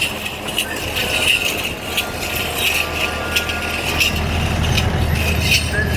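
Repeated metallic jingling and clinking, with a low engine-like rumble that swells about four seconds in.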